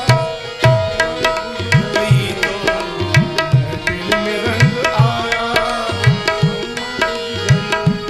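Instrumental interlude of a devotional bhajan: deep hand-drum strokes that bend in pitch keep a steady beat, about two a second, under sustained melody-instrument tones, with no singing.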